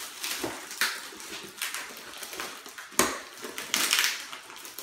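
Clear plastic wrapping crinkling and tearing in irregular crackles as it is pulled off a box, with the sharpest crackle about three seconds in.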